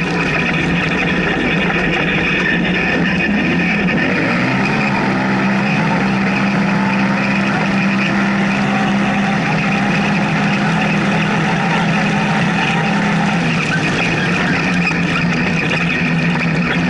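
Polaris RZR side-by-side engine and drivetrain running hard, heard from inside the open cockpit as a loud, steady drone with road and chassis noise. Its tone shifts about four seconds in and shifts back near the end, as the car slows from about 100 km/h to 35 km/h and then accelerates again.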